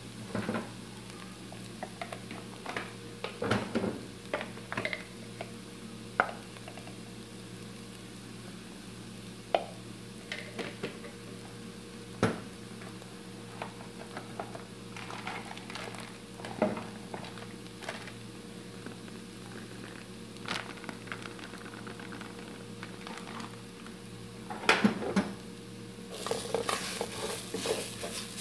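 Wooden spoon scraping and stirring chopped onion and garlic frying in oil in a nonstick pot, with a light sizzle and a steady low hum underneath. The scrapes and taps come scattered at first, then turn into fast continuous stirring near the end.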